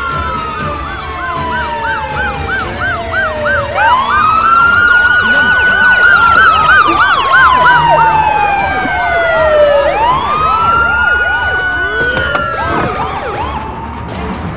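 Several emergency vehicle sirens sounding together: a slow wail that falls and rises in pitch every few seconds, with a faster warbling siren repeating about four times a second over it. The sirens get louder about four seconds in.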